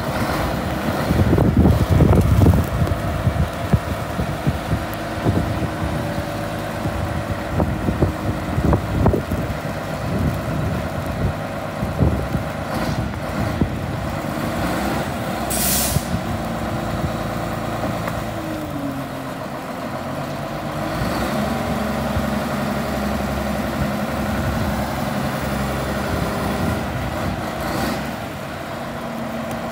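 Caterpillar 140H motor grader's diesel engine running as the machine drives slowly, with knocks and rattles in the first dozen seconds and the engine note shifting around twenty seconds in. A short hiss sounds about sixteen seconds in.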